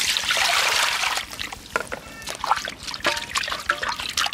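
Water poured from a plastic bowl splashing over a raw pig's head in a steel basin, stopping about a second in; then the water sloshes and splashes in small bursts as hands rub and wash the head.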